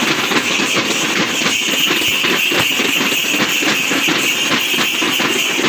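Tappeta gullu folk dance: many small hand-struck tappeta frame drums beaten together in a fast, steady rhythm, with the clusters of metal bells tied round the dancers' waists and legs jingling as they move.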